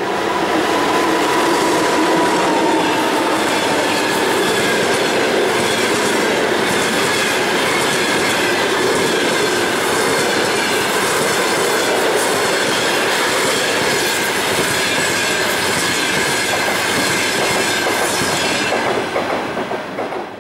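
EP2K DC electric locomotive and its passenger carriages passing at speed: a loud steady rush of wheels on rail with a rhythmic clickety-clack over the rail joints and a thin high tone over it. It dies away at the very end.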